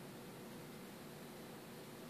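Faint steady hiss with a low hum underneath: room tone, with no distinct event.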